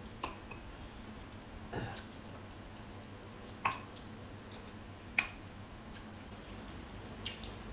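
Quiet eating at a table: five short clicks and taps, roughly one every second and a half, from a spoon on dishes and mouths chewing, over a low steady hum.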